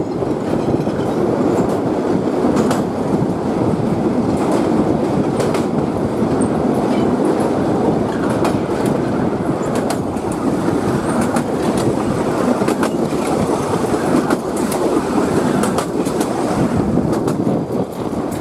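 Narrow-gauge passenger train rolling over a steel truss bridge: a steady rumble of wheels on rails, with scattered sharp clacks as the wheels cross rail joints.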